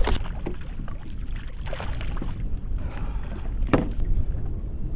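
Low rumble of wind and water around a small boat, with a few short knocks and clicks from handling the fishing gear; the sharpest click comes about three-quarters of the way in.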